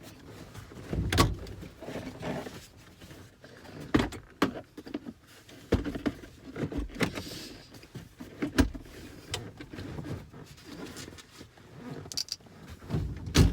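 Plastic center console being worked down over a shifter box in a car's interior: irregular knocks, taps and clicks of trim and hands, with a few sharper knocks standing out.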